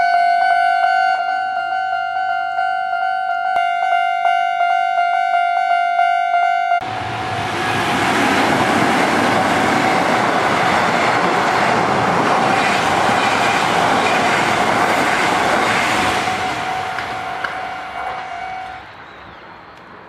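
A Japanese level-crossing warning bell rings in steady strokes, about two a second. About seven seconds in, a Kintetsu train runs through the crossing without stopping, its wheels and running noise loud for about nine seconds before fading away. The bell stops near the end.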